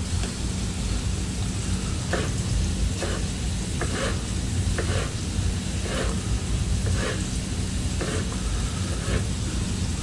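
Knife chopping a tomato on a cutting board, about one stroke a second, over the faint sizzle of vegetables stewing in a pan and a steady low hum.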